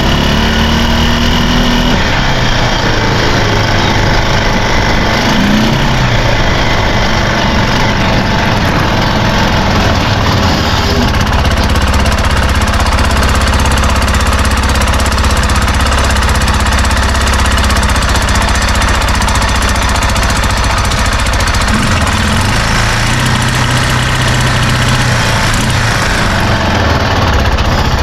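Arctic Cat Prowler 500 side-by-side's single-cylinder engine running with its carburetor refitted. Its speed rises and falls a few times, briefly, with a steadier stretch in the middle.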